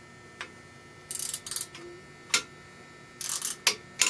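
Small metal parts and hand tools being handled on an engine teardown: scattered sharp clicks and clinks, with two short hissing scrapes.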